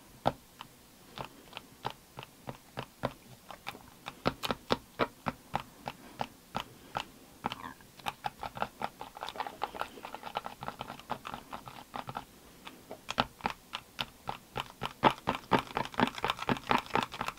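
Small whisk stirring thick, creamy hair dye mixed with conditioner in a tint bowl. It makes quick wet squelching clicks that come faster and closer together in the second half.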